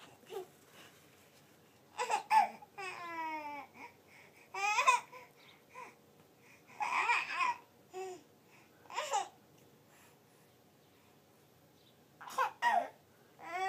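Baby babbling and squealing in short bursts with quiet pauses between, including a long falling squeal about three seconds in and a giggle.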